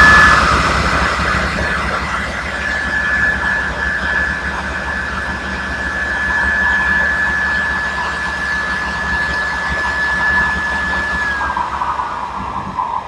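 Table saw running at full speed with a steady high whine, then switched off about eleven seconds in and winding down, its pitch falling steadily. The cut is stopped because the clamps are too tight for the workpiece to pass.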